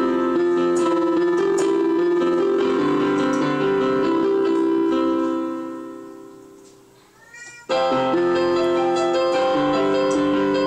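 Electronic keyboard played with a piano voice: held chords that die away almost to quiet about six seconds in, then a short rising meow from a cat, after which the chords start again abruptly.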